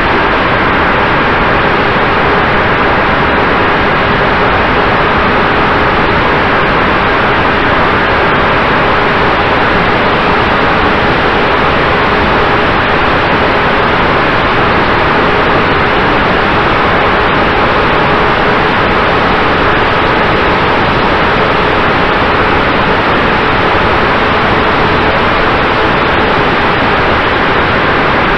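Steady loud rush of airflow over a model plane's onboard camera, with a faint steady whine from its electric motor and propeller.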